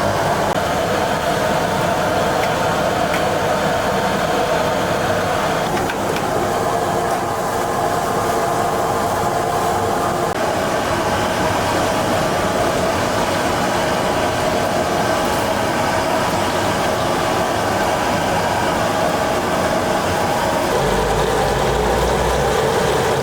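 Steady loud roar of a commercial kitchen's gas burners and extractor hood running, with a brief low rumble near the end.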